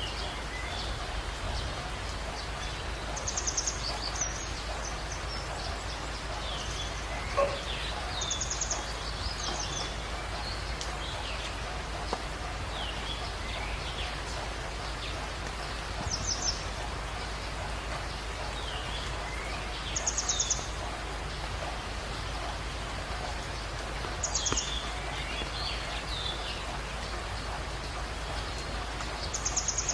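Wild birds singing over a steady hiss of background noise: a short, high, rapid trill repeats about every four seconds, with softer chirps in between.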